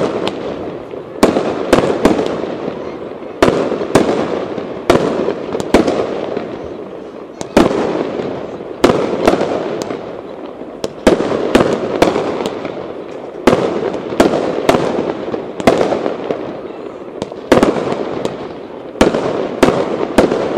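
Aerial firework shells bursting in quick succession: sharp bangs about every second, some in close pairs, each trailing off in a long fading echo.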